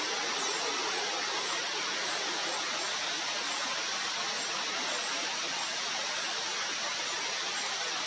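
Steady rushing of flowing water: an even, unbroken hiss with no change in level.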